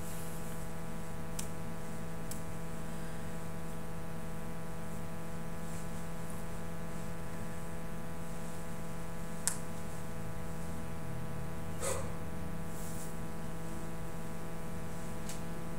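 Steady electrical hum made of several level tones, with a few brief faint clicks, the sharpest about halfway through and another a couple of seconds later.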